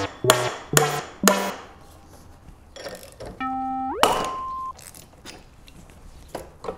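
Musical sound effects: three struck notes, each ringing off, in the first second and a half, then a tone that slides upward and holds briefly about four seconds in. Faint clicks underneath.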